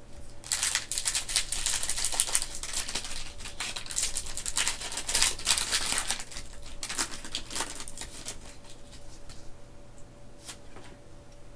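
Foil Pokémon booster pack wrapper being torn open and handled: dense crinkling and crackling for the first seven seconds or so, then a few fainter rustles and a single click near the end.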